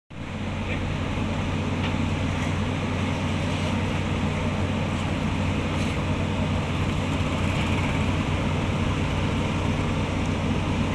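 A heavy machine's engine running steadily, an even low drone.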